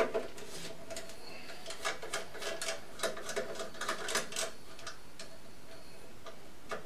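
Long magnetic-tip screwdriver backing a small screw out of the stainless-steel housing of an Ascaso i-Steel grinder. It makes light, irregular metallic clicks and scrapes, several a second, which die away about five seconds in.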